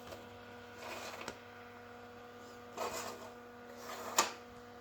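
1970s slide projector running with a steady motor hum. A few faint rustles, and one sharp click a little over four seconds in.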